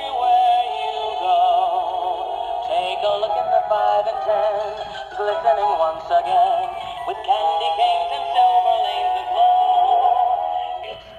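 A Sound n Light animated teddy bear toy playing a recorded song through its small built-in speaker: a sung melody with backing music, thin and with no bass.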